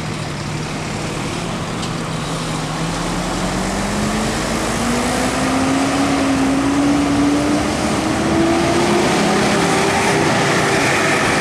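Mercedes-Benz bus's diesel engine pulling away up a steep bend, running steady at first, then its pitch climbing smoothly for several seconds as it gains revs, growing louder.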